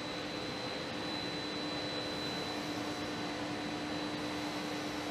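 Blown film extrusion line running: a steady machine whir with a constant low hum and a faint high whine.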